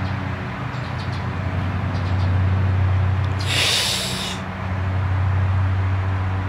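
Steady low motor hum, with a brief hissing rush about three and a half seconds in.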